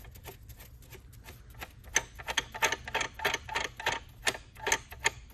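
A run of sharp, irregular clicks from a tool working on the Picote Mini Miller's drive assembly as the cable fitting is loosened. The clicks start about two seconds in, come several a second, and stop shortly before the end.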